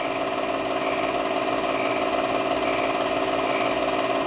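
An 8mm film projector running: a steady mechanical whir that holds one even pitch throughout.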